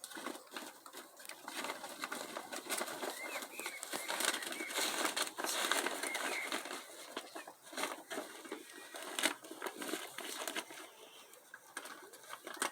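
A bird rustling and scratching about, with clicks and a few faint short chirps; the rustling is busiest in the middle.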